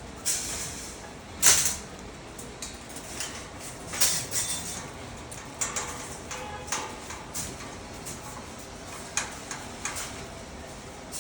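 Scattered knocks, clinks and scrapes of metal rack parts being handled and fitted together, loudest about a second and a half in.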